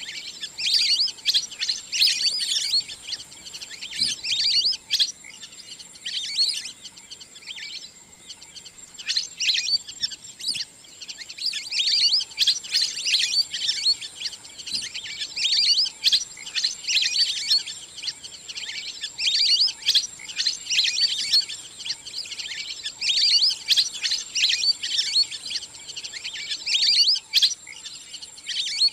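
Wild ducks calling, played as a hunting lure: rapid, high-pitched chirping whistles in repeated bursts every second or two, over a faint steady high tone.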